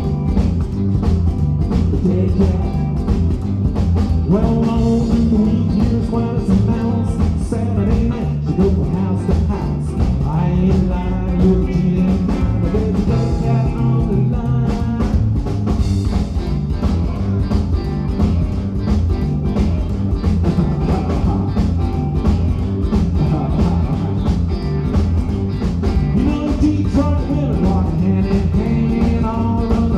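Rockabilly band playing live: upright double bass, electric guitar and drums, with a sung vocal line over a steady beat.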